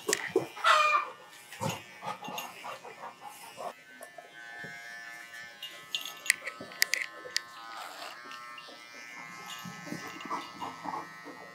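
Small cordless electric pet trimmer buzzing in stretches as it clips a Labrador's coat, settling into a steady hum near the end.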